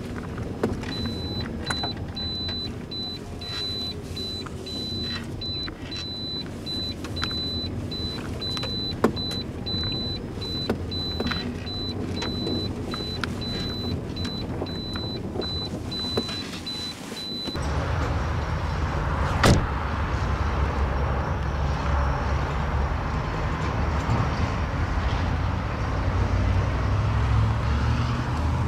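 Cabin noise inside a 2014 Datsun on-Do on the move: engine and road rumble under a faint, evenly pulsing high tone. Past the halfway point the sound cuts to louder outdoor noise with wind on the microphone, and there is one sharp knock soon after.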